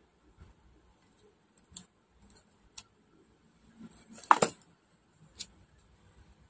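Small metal hand tools clinking and rattling as they are rummaged through in a drawer and a plastic bag: scattered light clicks, with a louder clatter about four seconds in and another clink a second later.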